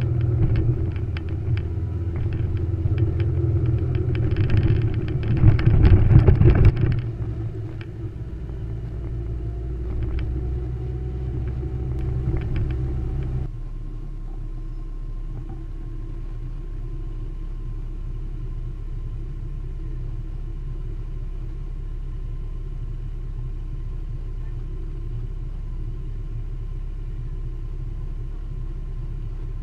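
Motorcycle engine running on the move with wind and road noise, loudest about six seconds in. About halfway through it drops abruptly to a steady, lower engine hum.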